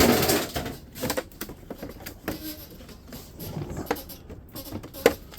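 Clattering and knocking of metal and plastic parts being handled while a dehumidifier is taken apart, a noisy scrape at the start and a sharp click near the end.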